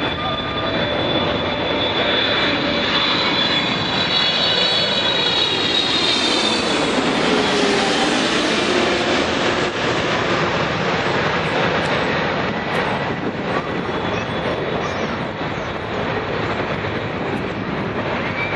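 Jet airliner passing close by: high turbofan whine sliding down in pitch over a broad engine noise, loudest about seven seconds in, then settling into a steadier rush as it moves away.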